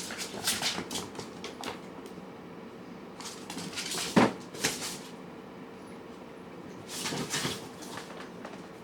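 Cats and kittens eating from food dishes: scattered light clicks and knocks of bowls and food, with one louder knock about four seconds in.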